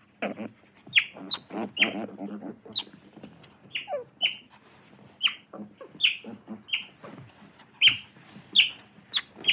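Otter calling: a run of short, high-pitched squeaky chirps, about two a second, each dropping slightly in pitch. Lower, rapid chattering joins in during the first couple of seconds.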